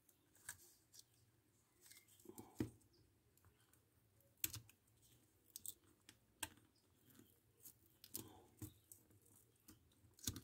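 Faint, irregular clicks and taps of fingers handling and prying at the plastic auto-darkening filter unit of a welding helmet, working it loose from glue and double-sided tape; otherwise near silence.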